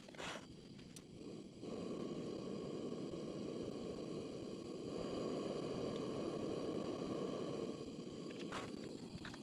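Gas blowtorch flame burning steadily under a steel pan, melting wax crayons. It starts about two seconds in and eases off near the end. A short clatter of metal on the bench comes at the start and another near the end.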